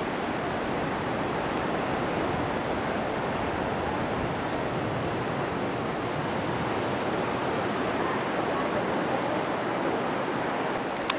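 Ocean surf, a steady even rush with no single breaking wave standing out.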